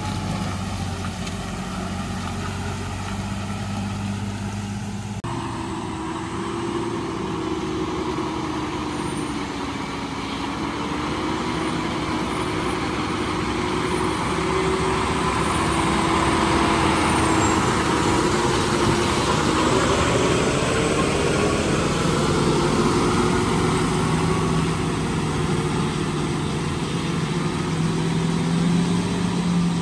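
Diesel engines of heavily loaded lorries labouring as they climb steep hairpin bends, the engine note rising and falling. The sound changes abruptly about five seconds in and grows louder in the middle.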